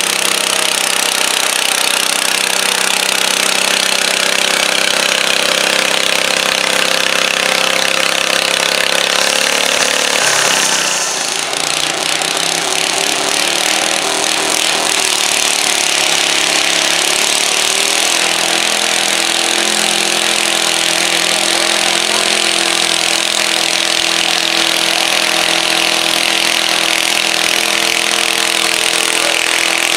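Small garden tractor engines running hard at high revs while pulling the sled, with a harsh, chainsaw-like tone. First comes a Wheel Horse garden tractor; after a sudden change about ten seconds in, another pulling tractor's engine holds steady high revs.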